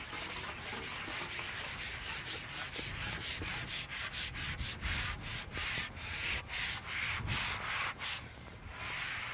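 Carbon pole being shipped out hand over hand, its sections sliding through the angler's hands in quick rhythmic rubbing strokes, about three to four a second, which stop about eight seconds in.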